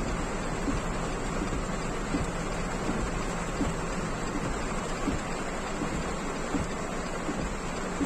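Heavy rain on a car's roof and windshield, heard from inside the car: a steady hiss with scattered, louder single drop hits.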